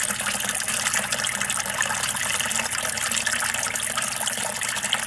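Water splashing steadily from two PVC drain pipes into an aquaponics fish tank, as both grow beds drain at once in their flood-and-drain cycle.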